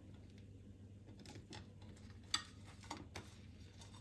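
Faint handling sounds of flour tortillas being peeled apart and laid on ceramic plates: soft rustles and light taps, with one sharper click a little past two seconds in and a couple of smaller ones about a second later.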